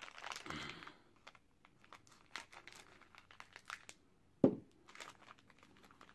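Nature Valley Crunchy granola bar wrapper being torn open and crinkled: a dense rustle in the first second, then scattered crackles of the wrapper. A single dull thump about four and a half seconds in.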